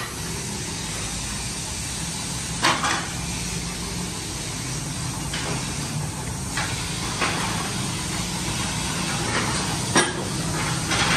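Steady workshop machinery hum with a hiss, broken by a few sharp metal knocks, one about three seconds in and several near the end.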